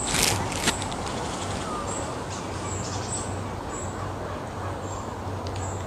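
Woodland ambience: a steady hiss with short, high bird chirps every second or so. A couple of sharp knocks near the start are footsteps on the wooden footbridge boards.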